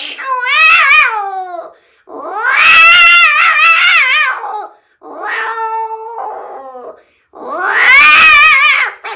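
A man imitating two cats fighting with his voice: four drawn-out, wavering yowls in a row, the second and fourth loudest, with a quieter, steadier-pitched call between them.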